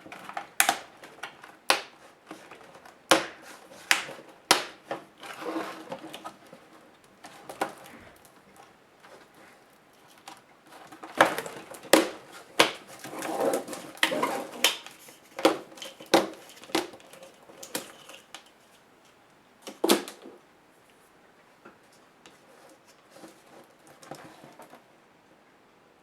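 Irregular clicks, taps and knocks of a Toshiba Satellite A505 laptop's plastic parts and screws being handled and pried apart during disassembly. The clicks come in clusters, with a busy run in the middle and one last knock, then the rest is quiet handling.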